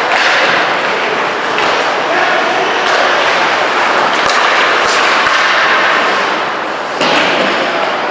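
Ice hockey play: a steady wash of skate blades scraping the ice and rink noise, broken by a few sharp knocks of sticks and puck.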